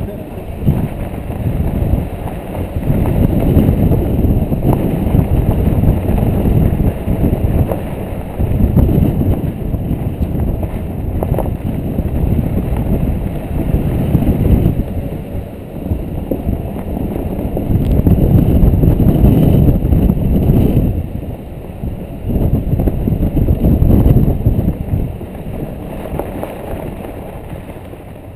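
Wind buffeting the microphone of a GoPro Hero 2 mounted outside a moving 2013 Jeep Wrangler JK, a loud low rumble that surges and eases every few seconds, with the Jeep driving on sand beneath it.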